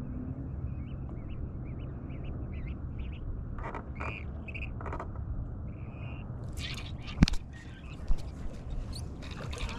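Birds calling in short repeated chirps over a steady low rumble. About seven seconds in comes a sharp knock followed by rustling and rubbing as the angler's arm sweeps past the camera while setting the hook on a fish.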